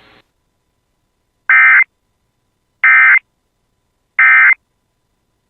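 Emergency Alert System end-of-message signal: three short, harsh bursts of digital SAME data tones, about a second and a half apart, marking the end of the alert.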